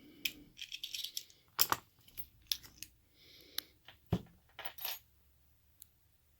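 Small metal lock parts and tools clinking and clattering against each other in a quick, irregular run of sharp clicks, stopping about five seconds in.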